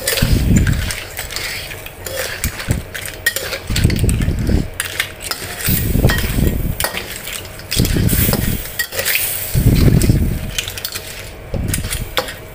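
Metal spatula stirring razor clams in a steel wok, scraping the pan and clattering the shells in irregular strokes.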